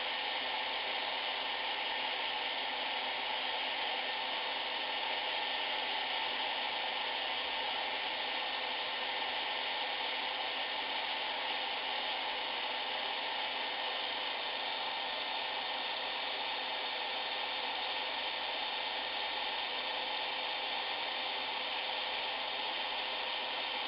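Hot-air blower running steadily, a constant whoosh of fan and air with a faint hum, blowing on a tamper-proof sticker label to soften its adhesive for removal.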